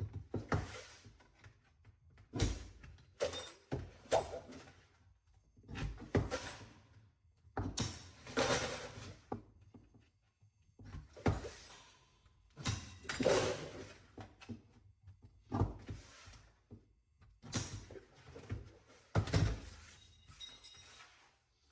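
Hand snips cutting sheet metal in a string of short cuts with pauses between, trimming the one-inch allowance for a Pittsburgh lock seam.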